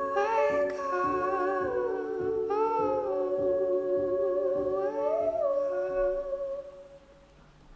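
Closing bars of a song: a woman's voice, layered in harmony, hums long held notes over a soft low pulse. It fades out from about six seconds in.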